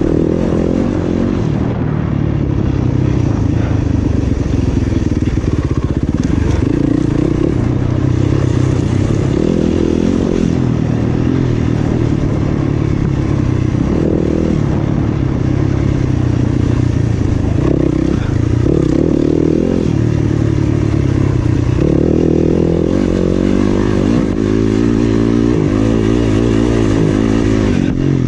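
Dirt bike engine revving up and down repeatedly as the rider accelerates and backs off through a tight off-road race course, with clattering and scraping from the bike over rough ground.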